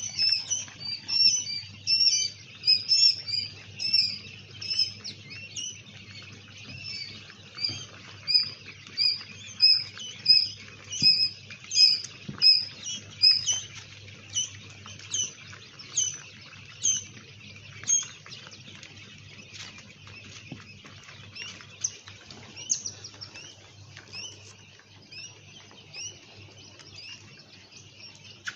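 Quail chirping in many short, high peeps, about two a second. The peeps are louder for the first two-thirds and fainter near the end, over a faint low hum.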